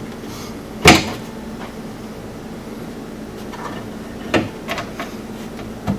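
Plastic push-in body rivets being pressed into a plastic shifter cover: one loud sharp snap about a second in, then a few lighter clicks near the end, over a steady low hum.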